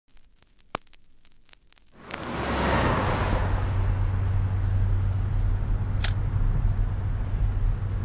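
Van cruising at highway speed, heard from inside the cab: a steady low road-and-engine rumble with a rush of wind noise that swells in about two seconds in. A few faint ticks come before it, and there is a sharp click near the middle.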